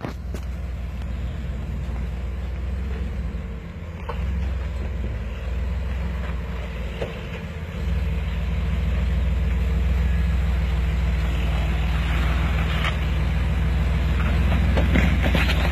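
2007 Jeep Liberty's 3.7-litre V6 running under load while rock crawling, getting louder about four seconds in and again about eight seconds in. A few sharp clicks or knocks are heard over it.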